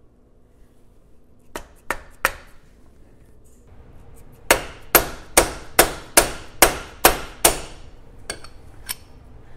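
Hammer striking a seal driver, tapping a new pinion seal into the Ford 8.8 rear differential. Three light taps come first, then a run of eight harder blows at a little over two a second, then two lighter taps near the end as the seal seats flush.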